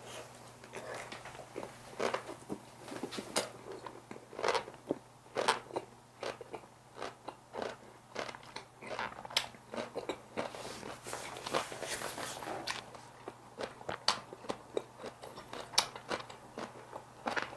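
A person biting and chewing kimchi wraps (napa cabbage kimchi ssam) close to a microphone, with irregular crisp crunches throughout.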